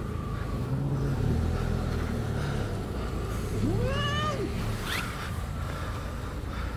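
A domestic cat meows once, about four seconds in; the call rises and then falls in pitch over about a second. A steady low rumble runs underneath.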